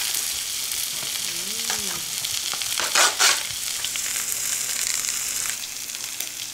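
Tomahawk steak sizzling steadily on an electric grill. About three seconds in comes a short, louder rustle as a styrofoam takeaway container is handled.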